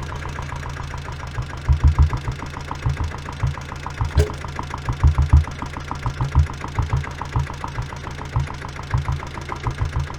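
Stock exhaust of a 1996 Royal Enfield diesel Bullet's single-cylinder diesel engine idling close to the microphone: a steady low beat with uneven, louder thuds coming every second or so.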